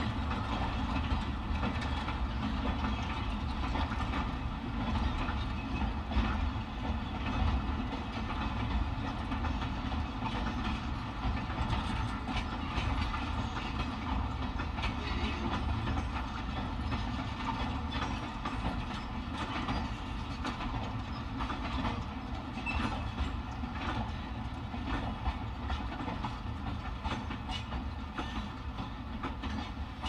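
A steam locomotive recording playing through a Toyota Prius's stock car-audio speakers, heard inside the parked car's cabin: a train running, with a steady rumble and a stream of clicks.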